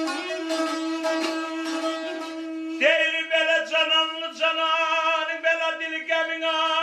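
Azerbaijani ashiq music: a saz played in fast plucked strokes over a steady drone note. About three seconds in, a loud held melody line on the balaban comes in, with short breaks between phrases.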